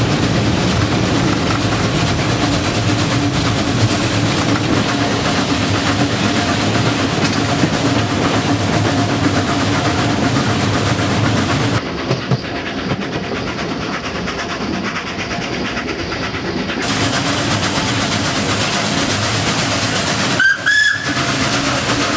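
Narrow-gauge steam locomotive JŽ 83-052 under way: heavy, steady running noise from the cab, then the train rolling along the track heard from a carriage. A short steam-whistle blast sounds near the end.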